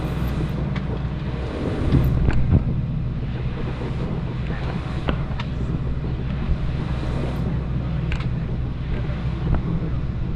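Steady low rumble of a Boeing 737's engines and airflow heard inside the cabin, with a few light knocks and rattles, the loudest about two seconds in.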